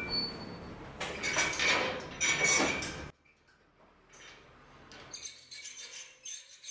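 Steel barrel bolt and padlock on a metal grille gate being handled: loud metallic clanking and rattling with a ringing edge for the first three seconds, stopping abruptly, then lighter metal clinks.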